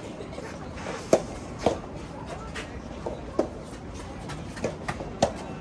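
Tennis rally: balls struck by rackets and bouncing on the court, a sharp pop every half second to a second, the loudest about a second in and near the end.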